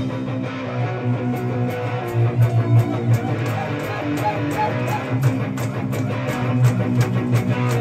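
Electric guitar played loud through an amplifier, strumming a riff on its own while the drums drop out. A faint regular clicking rides over it from a few seconds in.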